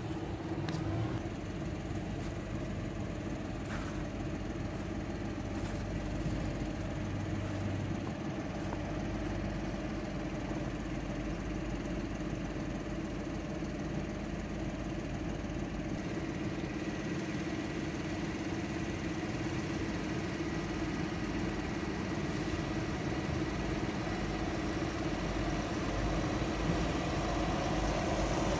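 Tractor engine running steadily, with a constant hum and a few light clicks in the first seconds.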